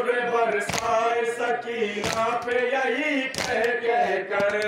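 A group of men chanting a Shia noha (mourning elegy) in chorus, with sharp hand strikes on the chest (matam) landing in time about every 1.3 seconds.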